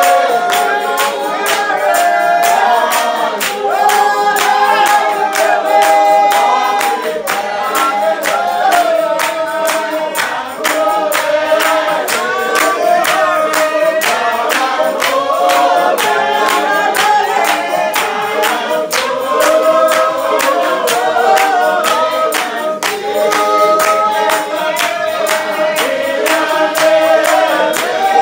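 Spiritual Baptist congregation singing a hymn together, with many hands clapping in a steady rhythm.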